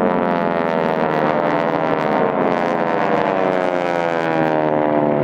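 Radial engines of a formation of North American T-6 Texans droning overhead in flight, the pitch sliding slowly lower.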